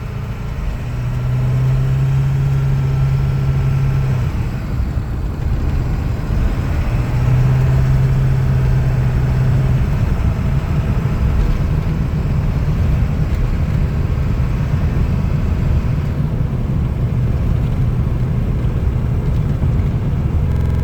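A vehicle running with a steady low rumble of engine and road noise; a low engine hum stands out twice, in the first few seconds and again about seven seconds in.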